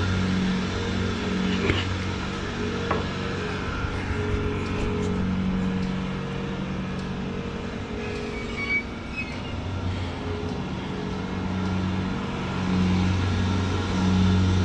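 Engine of a farm machine scraping manure along a barn alley, running steadily, with a couple of sharp knocks about two and three seconds in.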